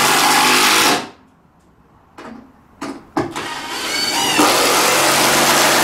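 Power drill driving screws through timber floorboards: a run of the motor that stops about a second in, a few short blips of the trigger, then a longer run with the motor's pitch rising as it speeds up.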